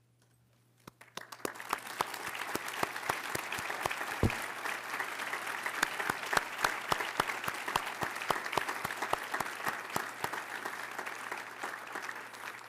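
Audience applauding: clapping starts about a second in, builds quickly to a steady level, and tapers off near the end.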